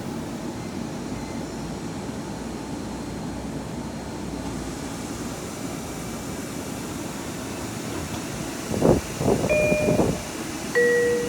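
Long Island Rail Road M9 electric train at the platform: a steady rumble, then near the end a few loud bursts of rushing air. These are followed by a two-note descending chime, the tone that comes before the train's automated station announcement.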